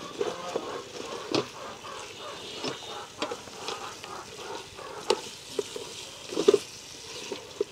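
Spatula stirring and scraping chicken curry in a rice cooker pot, with irregular knocks and scrapes, the loudest about six and a half seconds in, over a steady sizzle of the reducing sauce.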